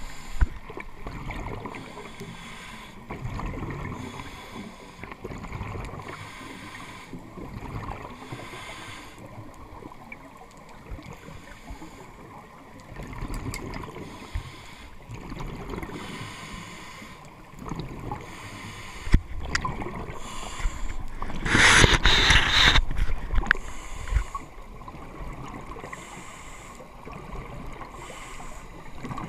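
Scuba regulator breathing heard underwater through a camera housing: soft hissing breaths recur every couple of seconds over a muffled water background, and about 22 seconds in a loud rush of exhaled bubbles lasts over a second.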